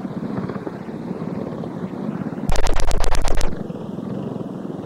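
Five-horsepower single-cylinder go-kart engines running as karts race by on a dirt track. About two and a half seconds in, a kart passes close and its engine turns loud and pulsing for about a second.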